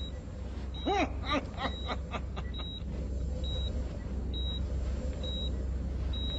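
Bedside heart monitor beeping steadily, a short high beep about once a second, over a low steady hum. About a second in, a man gives a short laugh.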